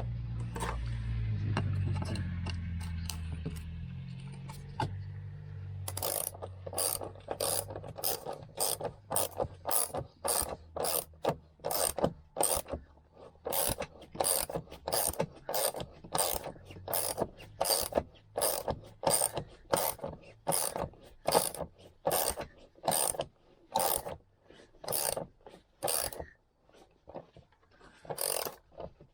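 Hand ratchet wrench with a 14 mm socket turning a seat-belt mounting bolt, clicking in quick strokes about two a second, with a short pause near the end. A low hum dies away over the first few seconds.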